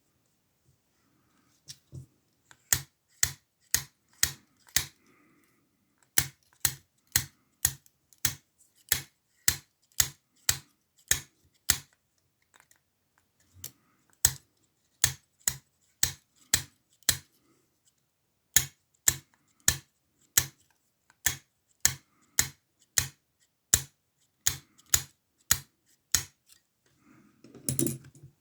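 Sharp metallic clicks from a lock pick working the pins of an older ASSA padlock's Ruko oval cylinder, evenly spaced at about two a second in runs with short pauses between them. A louder handling sound comes near the end.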